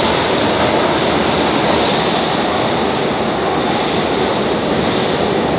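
São Paulo Metro Line 1 train running through the underground station: a loud, steady rumble of wheels on rail with a high hiss over it.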